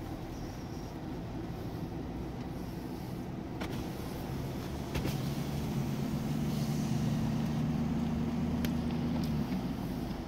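Car driving on a gravel road, heard from inside the cabin: steady engine hum and tyre rumble, growing louder from about halfway in, with a few sharp ticks.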